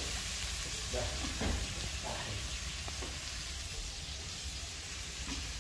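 Food frying in a pan: a steady sizzle, with a few faint scrapes in the first half.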